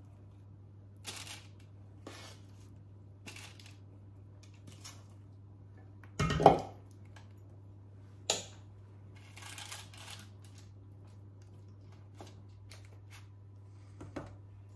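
Spoon and spatula scraping and tapping cake mixture out of a stainless-steel mixing bowl into a parchment-lined cake tin: scattered short scrapes and clicks, with one loud metallic clunk about six seconds in and a sharper knock about two seconds later.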